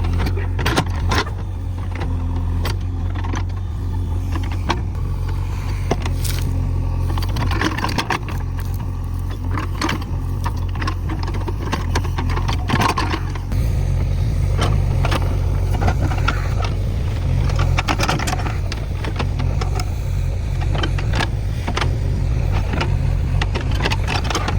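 JCB backhoe loader's diesel engine running steadily, with frequent knocks and clanks.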